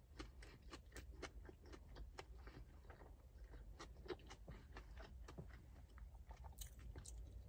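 Faint chewing of a mouthful of chicken sandwich, with soft, irregular mouth clicks and smacks.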